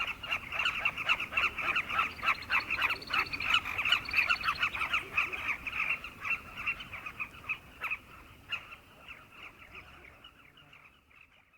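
A colony of carmine bee-eaters calling, many short calls overlapping in a dense chorus that thins and fades out over the last few seconds.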